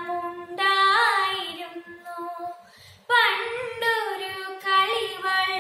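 A girl singing a Malayalam song unaccompanied, holding long notes, with a short breath pause about two and a half seconds in.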